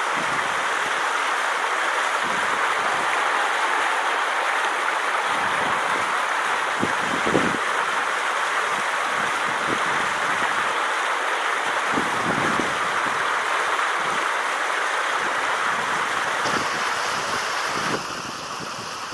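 Shallow river water rushing steadily over stones, with a few brief low bumps. It gets somewhat quieter near the end.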